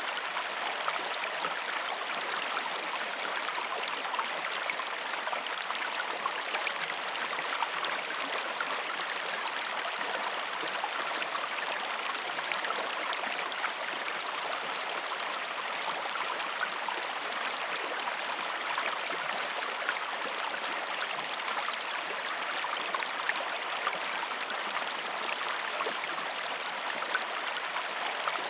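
River water flowing over rocks: a steady rushing babble with fine splashing.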